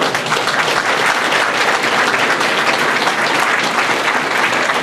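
A crowd of people applauding, steady dense clapping.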